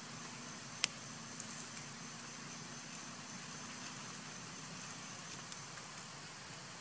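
Steady outdoor background hiss, with one sharp click a little under a second in and a few faint ticks later.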